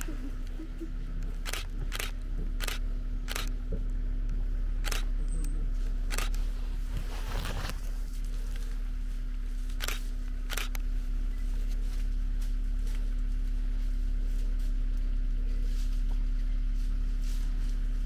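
DSLR camera shutters firing: about ten single clicks at uneven intervals and a quick burst about seven seconds in, stopping after about eleven seconds. A steady low rumble runs underneath.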